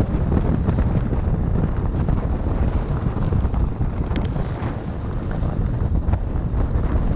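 Steady wind buffeting an action camera's microphone, over the rumble of a mountain bike rolling along a dirt trail, with a few light clicks and knocks from the bike.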